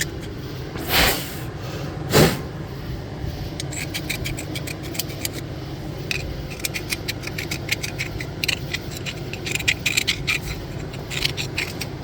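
Metal scraping and rasping as rust and oxidation are cleaned out of the steering knuckle's hub bore, with two louder strokes about one and two seconds in, then a long run of quick small scrapes and clicks.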